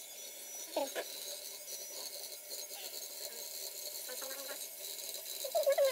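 Small gear motors of two mini sumo robots whining thinly as the robots push against each other, with a couple of short knocks about a second in.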